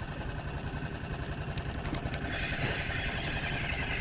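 Small boat outboard motor running low and steady with an even pulsing rumble; a higher hiss joins about halfway through.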